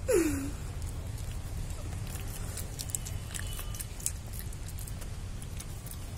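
Rhesus macaque eating a banana: faint scattered clicks and smacks of chewing over a low steady rumble. Right at the start a short voice-like sound falls in pitch.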